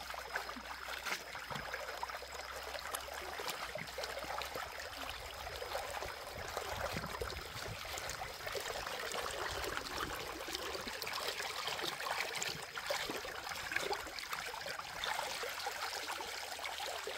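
Flowing stream water with many small, irregular splashes as a plucked goose carcass is sloshed and rinsed by hand in the current.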